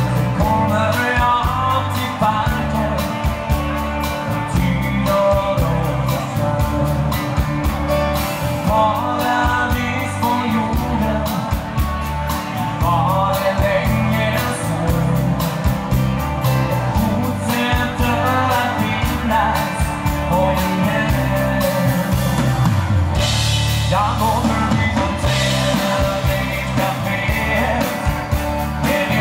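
Dansband playing live: a singer over electric band accompaniment with a steady drum beat.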